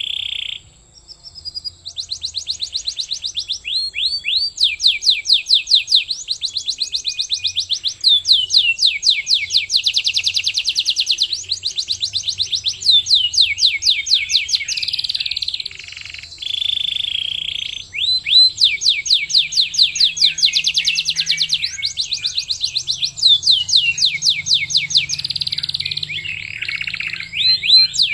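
Domestic canary singing a long, near-continuous song of fast trills: runs of rapidly repeated notes that change speed and pitch from one run to the next, with only brief pauses.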